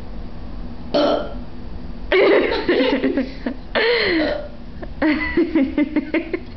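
A person burping: a short burp about a second in, then longer pitched burps whose pitch bends and falls, ending in a run of quick short burp pulses.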